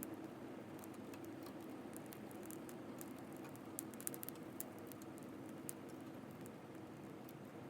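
Wood campfire burning: scattered sharp crackles and pops over a steady low rush of the fire, with a small flurry of pops about four seconds in.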